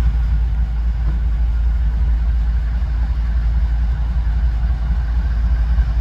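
GE ES44AC diesel-electric locomotive running as a light engine, its 12-cylinder GEVO diesel giving a steady low rumble.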